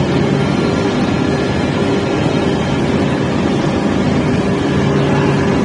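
Ring rolling machine running while it rolls a red-hot forged steel ring: a loud, steady mechanical drone with a constant low hum.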